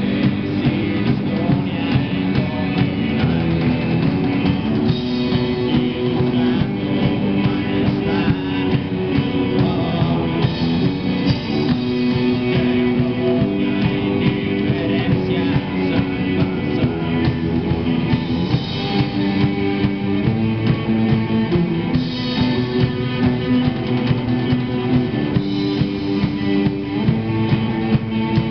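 Live rock band playing through amplifiers: electric guitars and a drum kit, with a steady pulsing beat.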